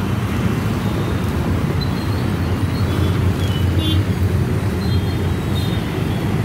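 Busy city road traffic: motorbikes, cars, auto-rickshaws and trucks passing in a steady low rumble, with a few short high beeps over it.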